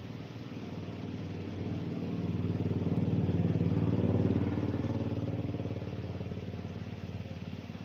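A motor vehicle's engine running, growing louder to a peak about three to four seconds in and then fading again.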